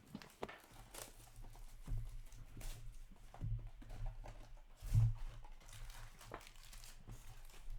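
Trading cards and packs being handled on a table: light rustling and clicks, with a few dull thumps about two, three and a half and five seconds in.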